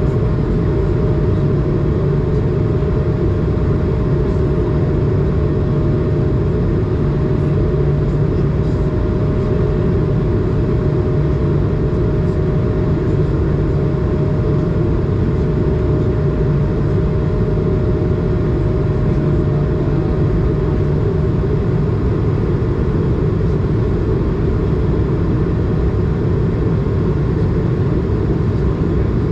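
Steady cabin noise of an Airbus A220 in the climb: the hum of its Pratt & Whitney PW1500G geared turbofan engines mixed with airflow, heard from a seat beside the wing. A faint steady tone runs along with it and fades out about two-thirds of the way through.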